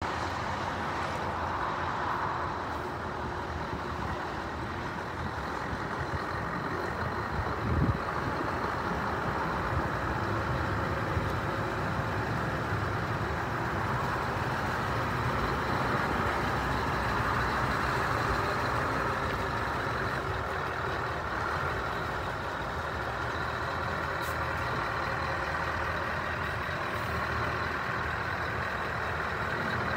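Scania R560 truck's V8 diesel engine idling steadily, with one brief knock about eight seconds in.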